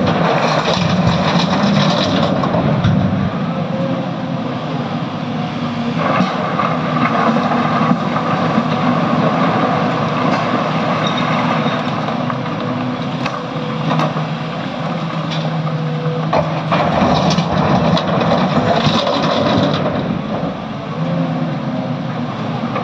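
SANY excavator's diesel engine running under working load with its hydraulics, the engine note shifting as the machine works, a steady whine held for several seconds in the middle, and a few sharp knocks.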